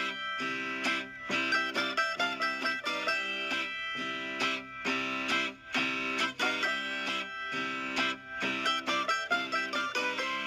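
Background music led by a plucked guitar, with quick picked notes.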